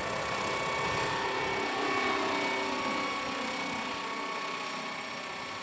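Radio-controlled scale model of a Robinson-type helicopter flying close by: a steady whine of motor and rotor over the rushing of the blades, growing louder to a peak about two seconds in and then easing off.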